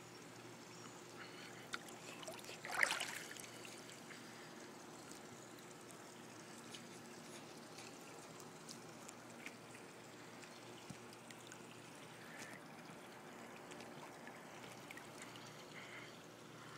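Swimming-pool water lapping and trickling faintly, with a brief louder splash about three seconds in.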